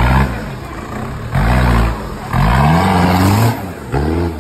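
Off-road 4x4's engine revving hard under load in repeated bursts, the pitch rising and falling with each blip, as the vehicle claws up a steep muddy bank.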